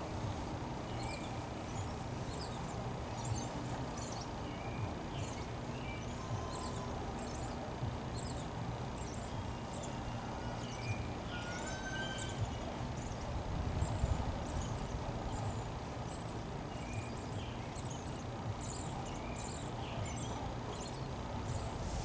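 Small birds chirping in trees, many short high chirps scattered throughout, over a steady low rumble of wind on the microphone.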